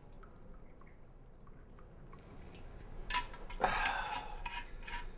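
Liquid poured from a metal hip flask into an enamel camp mug: a thin stream dribbling and splashing. It is faint at first, with sharper splashes in the second half.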